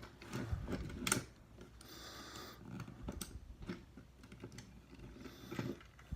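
Small plastic clicks and handling noises from a Transformers Studio Series Ratchet action figure as its parts are moved and snapped into place. The sharpest click comes about a second in, with a few more scattered after it.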